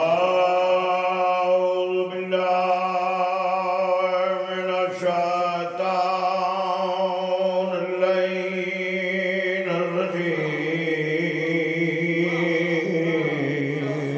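A man chanting through a microphone, holding long drawn-out notes at a steady pitch, with a short change of note every two or three seconds. The pitch sinks a little lower in the second half.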